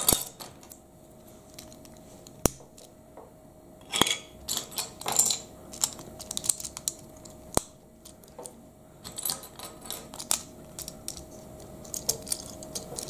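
Plastic LEGO bricks clicking and snapping together as they are handled and pressed onto a beam, in scattered sharp clicks and short clusters of small clatters.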